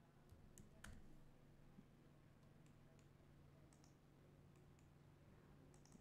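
Near silence with a handful of faint, scattered clicks from a computer mouse and keyboard, over a faint steady low hum.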